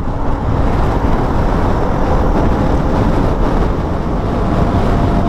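Motorcycle riding at road speed: a steady rush of engine, tyre and wind noise with no letup.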